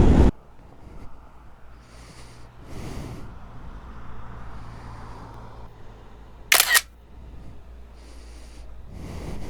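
A single short, sharp camera shutter sound about six and a half seconds in, over a low steady hum and a few soft rustles.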